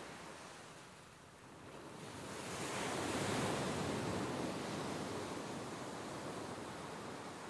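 Ocean surf on a beach: a wave swells up about two seconds in, breaks, and washes back out slowly.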